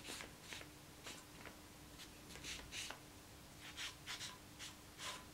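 Felt-tip marker pen scratching across paper in a dozen or so short strokes, tracing an outline.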